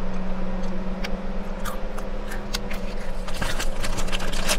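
Chewing with scattered crunchy clicks, then a plastic snack packet crinkling from about three seconds in, over a steady low hum.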